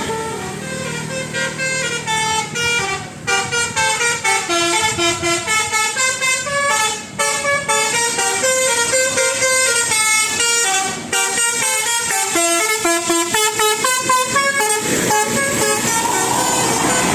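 Basuri multi-tone bus 'telolet' air horn playing a fast melody of short stepped notes, which stops about fifteen seconds in.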